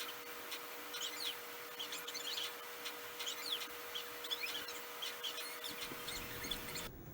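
Small birds chirping over and over in quick, short calls, with a steady faint hum underneath. The sound cuts off suddenly just before the end.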